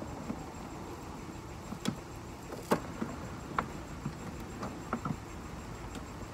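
Plastic fender-liner fasteners clicking and snapping as they are worked loose, about half a dozen sharp clicks scattered through, over a steady low background rumble.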